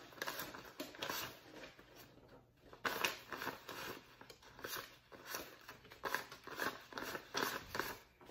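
Paper dollar bills being counted by hand: crisp papery flicks and rustles as notes are peeled off a stack, irregular, about two or three a second.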